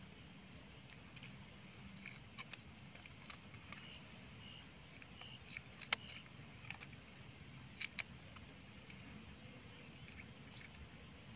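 Faint insects trilling in a steady, rapidly pulsing high note, with short chirps and a few sharp clicks: the loudest click comes about halfway through and two more close together a couple of seconds later.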